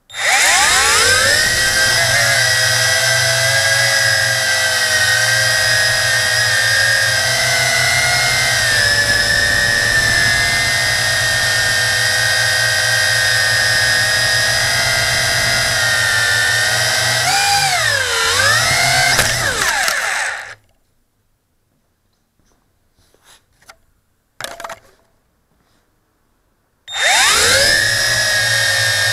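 JJRC Tarantula quadcopter's motors and propellers, heard from the camera mounted on the drone. A loud whine rises as the motors spin up, holds steady in flight, dips and swells in pitch with a throttle change, and stops about 20 seconds in. After a few quiet seconds with a couple of faint knocks, the motors spin up again near the end.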